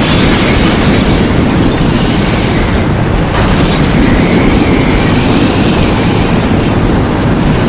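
Stock tornado sound effect: a loud, steady rumble of wind with brief brighter hissing rushes, the first at the start and another about three and a half seconds in.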